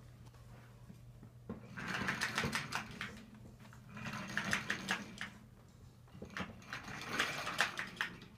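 Small plastic pull-along toy train clicking and rattling as it is dragged over a hardwood floor, in three bursts of rapid clicks a couple of seconds apart.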